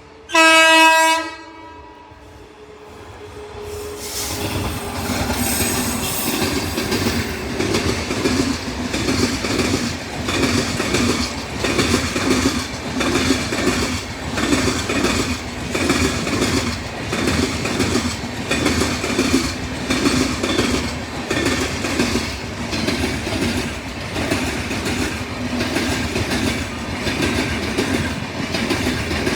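WAP7 electric locomotive horn giving one loud, shrill honk lasting about a second. A few seconds later a train passes close by, with a steady rumble and its wheels clattering over the rail joints in a regular rhythm.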